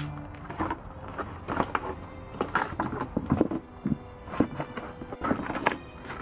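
Empty black plastic plant pot knocking and scraping on concrete as a Siberian husky noses and shoves it along, a string of irregular knocks and clatters.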